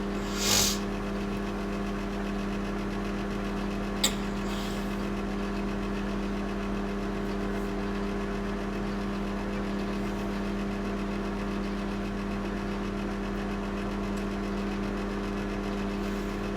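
Microwave oven running with a steady hum while it cooks, with a short hiss about half a second in and a sharp click about four seconds in.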